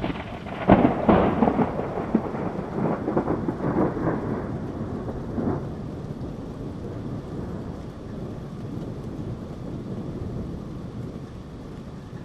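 Thunderstorm sound effect: a crackling peal of thunder breaks about a second in and rolls on for several seconds before dying away, leaving steady rain.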